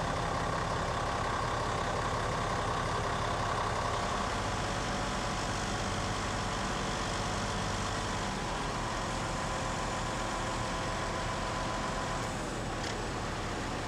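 Diesel engine of a Morooka MST-2200VD tracked carrier running steadily, with a thin whine over it that fades shortly before the end; a single brief click near the end.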